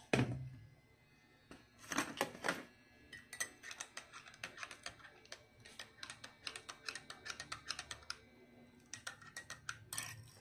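Metal spoon stirring coffee in a glass mug, clinking against the glass: a few louder knocks about two seconds in, then a steady run of light clinks, several a second.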